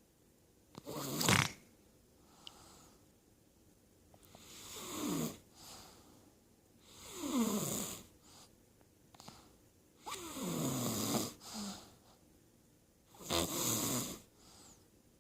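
A sleeping girl snoring, five snores about every three seconds, several of them sliding down in pitch.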